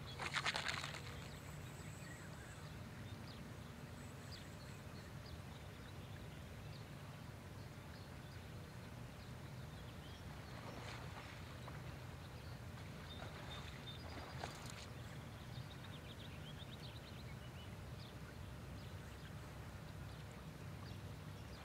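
Faint outdoor ambience with a steady low rumble, broken by one loud harsh bird call about half a second in and a few fainter, shorter calls later on.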